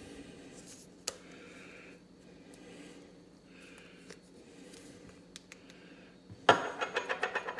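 Faint clicking and rubbing of metal and plastic drain-strainer parts being worked in the hands. About six and a half seconds in, a small metal part hits the countertop and keeps rattling in rapid ticks, like a dropped coin spinning down.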